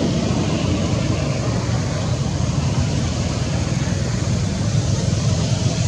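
Steady low rumbling background noise with a fainter hiss above it, unchanging throughout.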